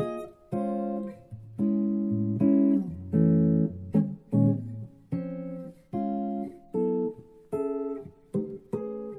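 Guitar playing a quick series of jazz chords, each one struck and left to ring briefly before the next.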